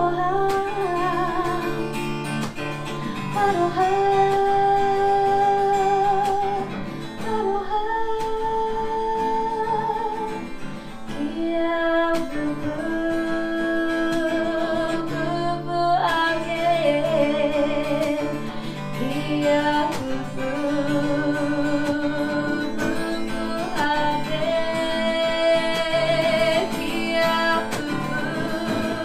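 A solo singer with acoustic guitar performing a song live: strummed chords under long held vocal notes with vibrato.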